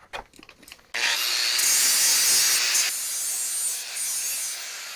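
A few light knocks, then about a second in a handheld power grinder bites into the cast metal of the bench vise, giving a loud, harsh scraping hiss. It eases to a lower, steady grind after a couple of seconds as the side of the vise is cleaned up.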